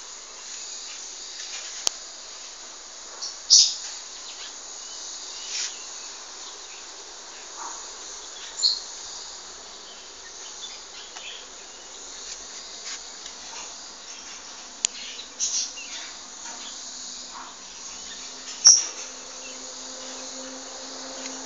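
Outdoor ambience: a steady hiss of insects, broken by short high chirps about four times. A faint low hum comes in near the end.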